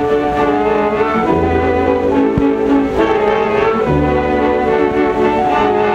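Slow orchestral music led by bowed strings, long held chords over a low bass note that comes and goes, heard through the narrow range of a 1930s 16mm film soundtrack.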